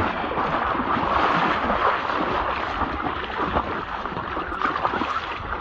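Shallow water splashing and sloshing around a person's legs as she wades through it toward the shore.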